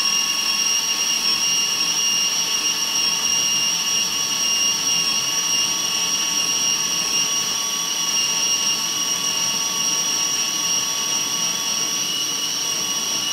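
Oster electric mini food chopper running continuously, pureeing onions and seasonings into a paste. Its motor gives a steady high-pitched whine.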